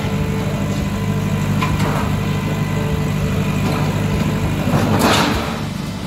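JCB backhoe loader's diesel engine running steadily, with a louder crash about five seconds in as the bucket breaks into a shop front.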